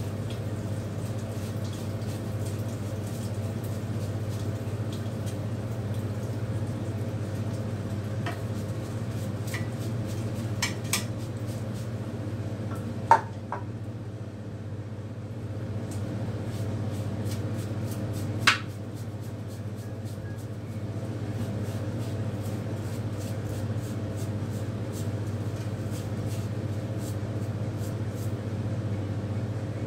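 Hard objects clinking and knocking against a ceramic bathroom sink while a small dog is washed in it: scattered light clicks, with two sharper knocks a little over five seconds apart. A steady low hum runs underneath.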